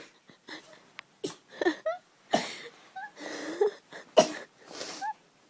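A young woman sneezing several times in quick succession, with short breaths and small voiced sounds between; the loudest, sharpest sneeze comes about four seconds in.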